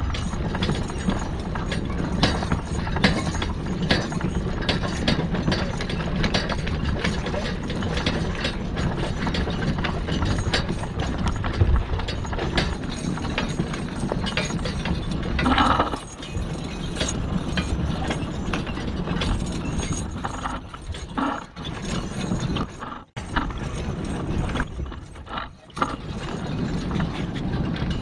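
A team of two Percheron draft horses pulling a rubber-tyred steel forecart over a packed snow trail: the cart and harness rattle and clank steadily under the hoofbeats. About halfway through there is a brief higher sound, and near the end the rattle drops away for moments.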